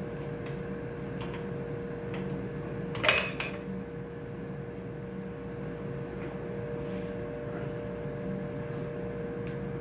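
A steady hum, with one sharp knock and a short ring about three seconds in as hands work the parts of an elevator brake's plunger assembly, and a smaller click just after.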